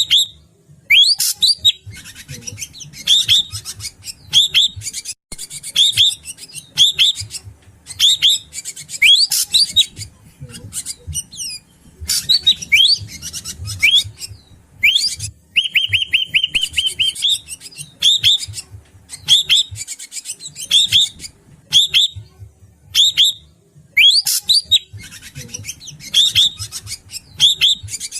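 A drongo (srigunting batu) calling over and over: short, sharp, hooked whistles repeated about once or twice a second, with a fast rattling run of evenly spaced notes near the middle. A low, faint rapid ticking runs underneath.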